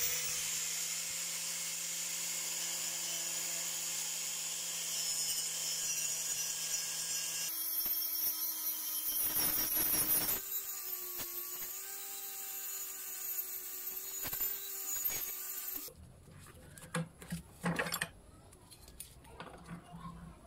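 Angle grinder with a sanding disc spinning up and running steadily, sanding rust off a steel spatula blade clamped in a vise, with a louder scraping stretch about halfway. It stops abruptly about three quarters of the way through, followed by a few knocks and clicks of the spatula being handled in the vise.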